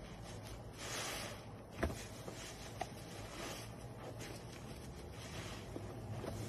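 Large sponge being squeezed and wrung in a sink of thick soap suds: wet squishing of sponge and foam that swells with each squeeze, about every two seconds, with two short sharp clicks about two and three seconds in.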